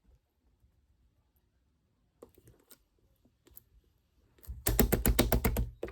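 Slime being pressed and squeezed by hand, giving a few faint clicks and then, near the end, a loud fast run of crackling clicks and small pops, about ten a second.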